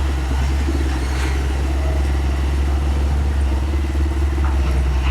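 Excavator's diesel engine running steadily: a loud, low drone with a fast, even pulse, and a few faint clicks.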